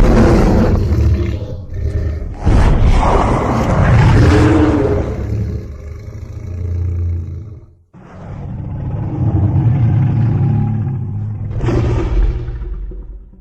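Godzilla roar sound effects: long, loud, rasping roars, the first breaking off for a moment about two seconds in and trailing away by about seven seconds; the second starts just before eight seconds and swells again near the end before fading.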